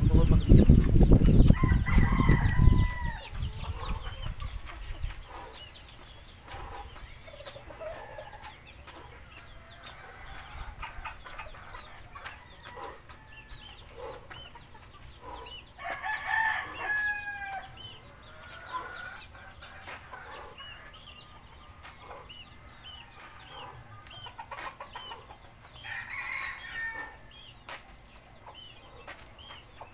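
A rooster crowing three times: about two seconds in, midway and near the end, the middle crow the loudest. Scattered chicken clucks and small chirps between the crows. A heavy low rumble fills the first three seconds.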